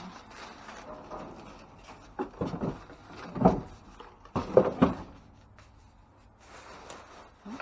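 Plastic garbage bags rustling and being shoved around in a dumpster, with several dull thumps, the loudest a little past the middle.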